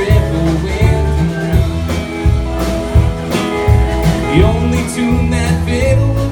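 Band playing a slow country-folk ballad, with guitar over a moving bass line and some singing.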